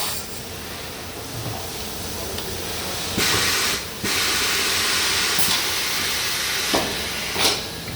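Compressed air hissing in bursts from the pneumatic controls of a tyre changing machine: a short burst about three seconds in, a longer one of about two and a half seconds right after, and a brief one near the end.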